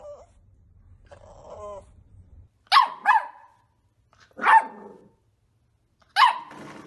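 A small curly-coated puppy barking: two quick sharp barks, then two more single barks about a second and a half apart, after a faint soft whine.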